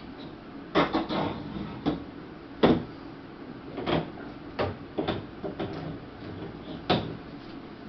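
Coated steel wire cart parts clacking and knocking together as they are fitted by hand: about ten irregular knocks, the loudest nearly three seconds in.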